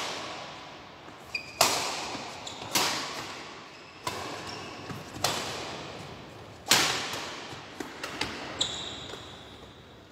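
Badminton rackets striking a shuttlecock in a rally: four sharp hits, one to two and a half seconds apart, each ringing out in the hall's echo. Short high squeaks of shoes on the court floor come between the hits, the longest near the end.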